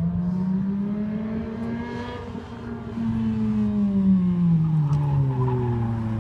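Ferrari sports car's engine running as the car drives around a curve, its note climbing over the first couple of seconds, easing, climbing again midway and then dropping away.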